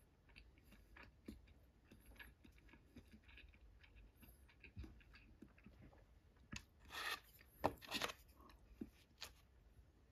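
Quiet chewing of sushi: soft scattered mouth clicks and small crunches, with a short cluster of louder, noisier chewing or handling sounds about seven to eight seconds in.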